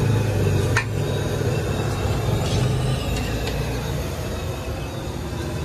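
Street traffic: a vehicle engine running with a low steady hum that eases off after about three seconds, with a sharp click about a second in.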